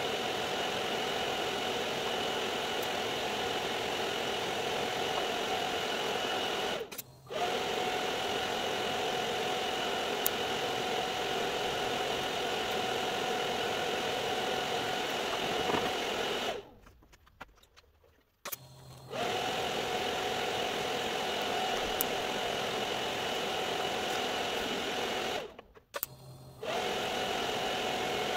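TIG welding arc on a sheet-steel door-bottom patch seam, a steady humming buzz that cuts out and restarts three times as the welder stops and starts the bead.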